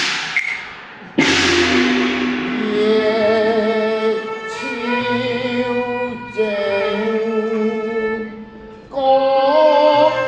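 Cantonese opera ensemble music: a sudden percussion crash about a second in, then a sustained melodic line with a strong vibrato over held accompaniment, with a fresh loud entry near the end.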